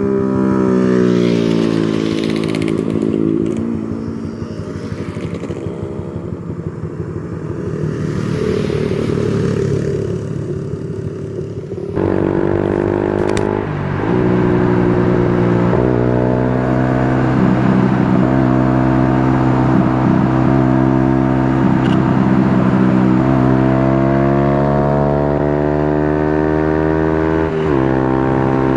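Motorcycle engine heard while riding. The pitch rises as it accelerates through the gears and drops at each shift, with one sharp drop near the end.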